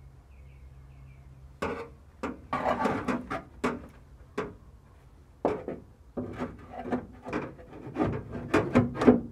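Handling noise as a steel window regulator and its small fittings are worked into the sheet-metal inner quarter panel of a car body: a string of clunks, clicks and rubbing that starts about a second and a half in.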